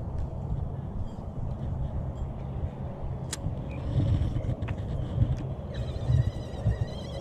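Wind rumbling on the microphone, with a few light clicks. From about six seconds in, a spinning reel's gears whir in a wavering high whine as the handle is cranked to retrieve line.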